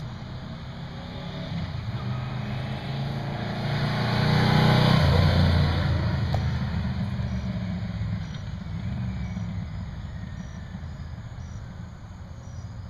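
1989 Yamaha Venture Royale 1300's V4 engine, breathing through used aftermarket exhaust pipes thought to be Jardine, riding past. The note builds as the bike approaches, is loudest about five seconds in, then drops in pitch and fades as it moves away.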